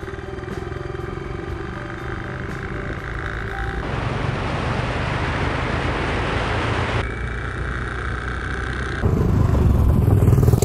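Royal Enfield Bullet 500's single-cylinder four-stroke engine running on the road, its exhaust note steady under way. About four seconds in, wind rushes over the microphone for some three seconds, and near the end the bike passes close by, loudest there.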